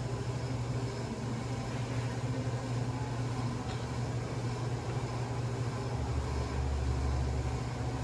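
Steady low hum of commercial kitchen machinery over a faint even hiss. A deeper hum joins for about two seconds near the end.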